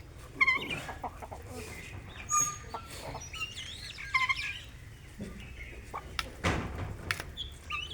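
Birds giving short chirping calls several times, with a brief rustling noise about six and a half seconds in.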